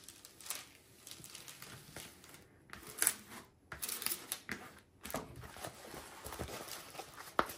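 Clear plastic film on a diamond painting canvas crinkling and crackling as a plastic straightener is swept across it to flatten the canvas, then rustling as the canvas is lifted. Sharper crackles come about three seconds in and just before the end.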